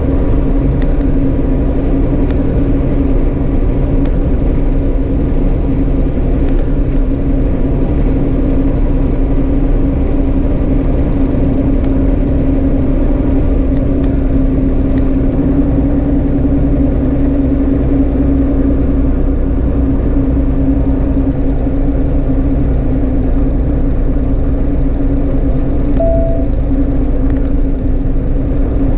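Peterbilt 389 semi truck at highway cruising speed: a steady diesel engine drone with one constant hum, under a loud, even rumble of road and wind.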